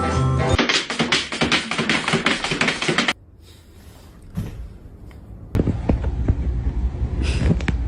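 A quick run of rapid taps lasting about two and a half seconds, then a quieter stretch, then a low rumble with a few separate knocks near the end.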